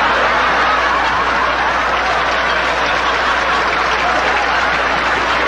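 Large audience laughing and applauding in response to a punchline: a steady, dense wash of laughter and clapping.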